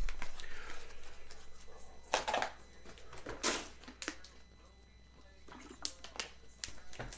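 Scattered short rustles and clicks of trading cards and their packaging being handled, in a few small groups with a near-silent gap in the middle.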